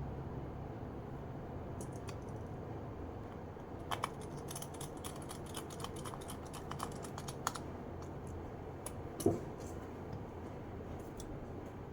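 A run of light, quick clicks and taps, with one louder knock near the end, from handling the small parts of an opened laptop. A steady low hum runs underneath.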